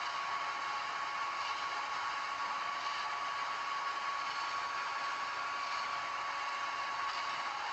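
Ajax Argo 2500 self-loading concrete mixer running, a steady mechanical hiss with a constant high whine.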